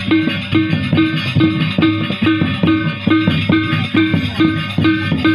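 Traditional Lombok ensemble music with a steady beat of ringing struck metal tones, about two a second, over busier percussion.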